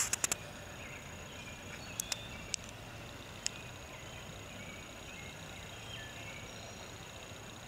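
Outdoor ambience with a steady high insect drone and faint scattered bird chirps over a low hiss. A quick cluster of sharp clicks sounds at the very start, and a few single clicks follow between two and three and a half seconds in.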